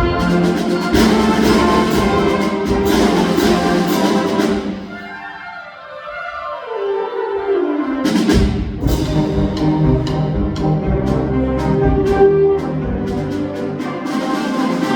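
Concert wind ensemble playing a piece for full band with brass and percussion. About four and a half seconds in the band thins out and a single line falls steadily in pitch for a few seconds. The full band comes back in about eight seconds in with percussion hits.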